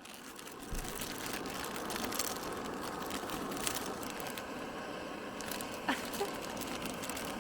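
Car moving slowly over a rough road, with steady road noise and low rumble and scattered small rattles and ticks.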